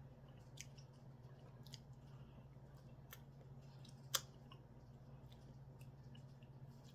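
Faint, quiet eating sounds as ice cream is tasted: scattered small mouth clicks, with one sharper click about four seconds in, over a low steady hum.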